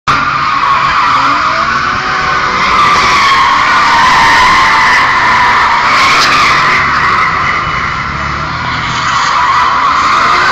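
Car tyres squealing continuously through a long power-slide drift, with an engine revving up and down underneath. The squeal eases a little about eight seconds in and then comes back.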